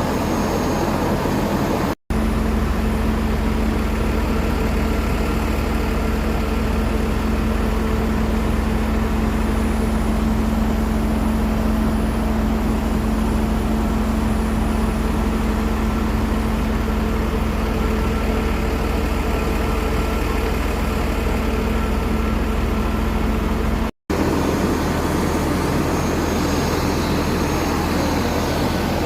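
Aircraft engines running steadily on the ground. The sound is a loud, even hum over a deep rumble, broken by two abrupt cuts, about two seconds in and near the end.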